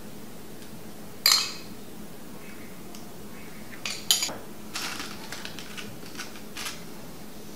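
A metal spoon clinks against a bowl and a tin can, one sharp clink about a second in and a couple more about four seconds in, followed by lighter clicks and rustles as tortilla chips and diced tomatoes are dropped into the can by hand.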